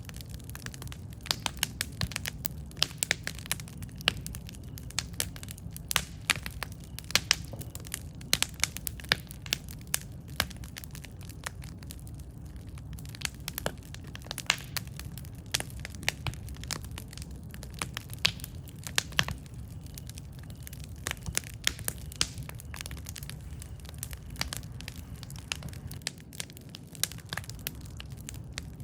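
Wood campfire burning, with a steady low rumble of the flames and many irregular sharp crackles and pops from the burning wood.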